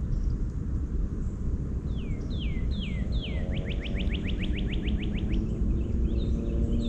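A songbird singing: four downward-slurred whistles, then a fast trill of about a dozen notes, with more chirps near the end. Under it is a steady low rumble.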